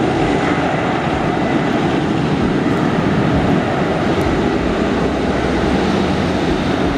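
Boeing 747-8F freighter's four GEnx turbofans running at taxi power, a loud steady jet noise that holds level throughout.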